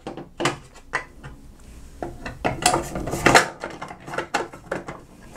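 Clear plastic protective cover of a controller enclosure being handled and fitted back over the circuit board: a run of plastic clicks, taps and rattles, loudest around the middle.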